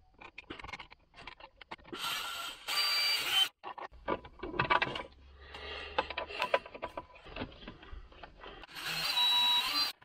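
Power drill run in three short bursts, two back to back about two seconds in and one near the end, with a steady motor whine in each. It is at work fitting a USB charging port into the car's centre console. Small clicks and handling noises come between the bursts.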